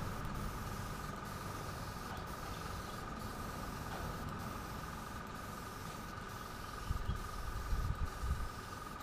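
Revell Vario bottom-feed airbrush spraying paint at about 10 psi: a steady hiss of air with a steady high tone beneath it. A few low thumps near the end.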